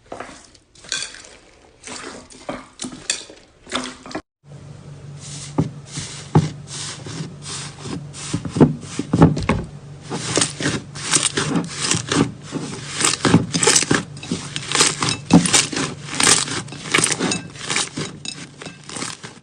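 Slime being handled and pressed for ASMR: a run of sharp crackling clicks, pops and scrapes that grows denser in the second half. A brief break about four seconds in, after which a low steady hum runs underneath.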